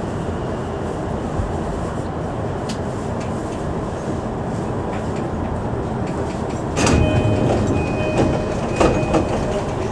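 Inside an E233 series 2000 train car slowing into a station: a steady rumble of wheels and running gear. About seven seconds in it grows louder, with clattering clicks and a thin high squeal, and more clicks near the end.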